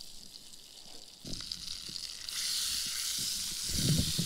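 Butter frying in a pan on a camp stove: the sizzle swells suddenly a little past two seconds in, with a few soft knocks from handling.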